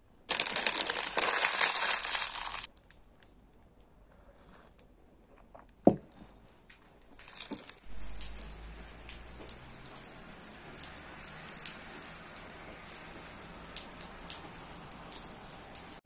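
Chocolate bar wrapper crinkling loudly for about two seconds at the start. After a quiet spell with a single click, steady rain falls from about halfway on, with many small drop ticks.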